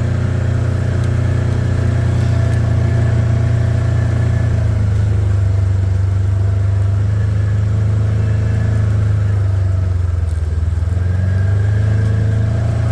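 Engine of a vehicle being ridden along a fence line, running steadily at an even speed with a low, constant note that eases slightly about ten seconds in.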